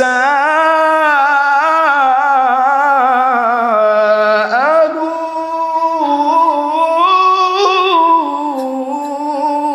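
A man's voice chanting through a microphone in a long, drawn-out melody with held notes that waver and slide. It is a Quran verse intoned in the sung style of a Bangla waz sermon.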